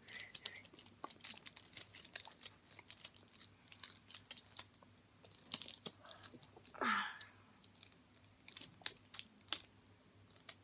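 Small plastic clicks of a Rubik's Snake's segments being twisted, an irregular run of light clicks. About seven seconds in there is one brief louder sound that rises in pitch.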